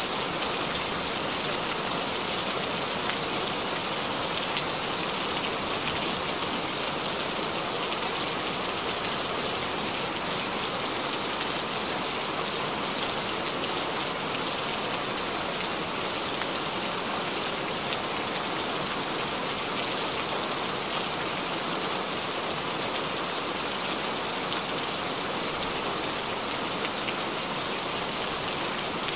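Heavy rain falling steadily, a dense even patter of drops.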